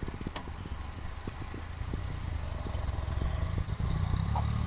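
A small vehicle engine running, its low rumble growing gradually and rising in pitch near the end as it picks up revs.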